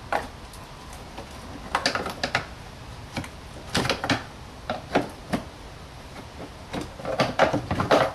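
Plastic airbox being pulled and wiggled free of its mountings in a van's engine bay: irregular clusters of sharp plastic knocks and clatters, the loudest burst near the end.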